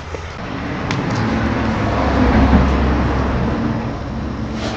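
Homemade compressed-air engine, a small single-cylinder engine converted to run on compressed air and exhausting through a homemade PVC muffler, running with a steady hissing whir. It builds up over the first two seconds, then eases off slightly.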